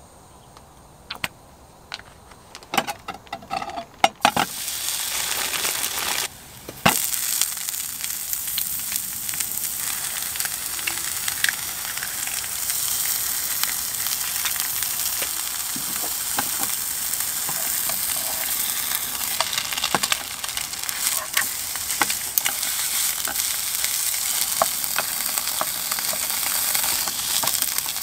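Egg, hash-brown patty and sausage sizzling in hot oil in a nonstick frying pan. A few clicks and knocks come first; the sizzle starts suddenly about four seconds in, dips briefly, then runs on steadily with occasional ticks and spatula scrapes.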